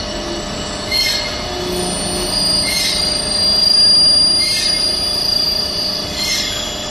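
Metal being machined, with a high-pitched squeal over a steady mechanical noise that swells and eases about every second and a half to two seconds.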